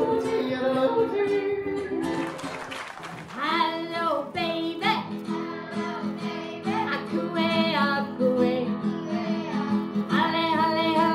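Live singing to guitar. A man's singing tails off, there is a short noisy break about two seconds in, and from about three and a half seconds in a woman sings over a strummed acoustic guitar.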